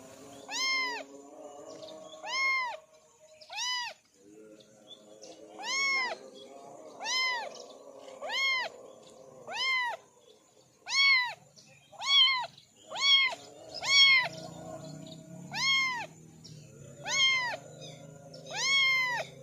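Kitten meowing over and over: about fifteen short, high-pitched meows, each rising and then falling in pitch, roughly one a second and coming a little faster in the second half.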